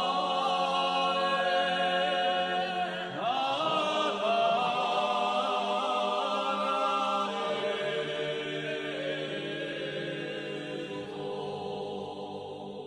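Unaccompanied voices singing long held notes in a slow chant, the harmony shifting now and then, growing quieter over the last few seconds.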